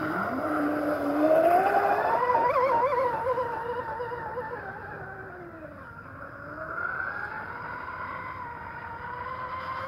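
Traxxas M41 Widebody RC catamaran's brushless electric motor whining under throttle. The pitch climbs over the first couple of seconds and wavers, falls away to a low about six seconds in, then rises again.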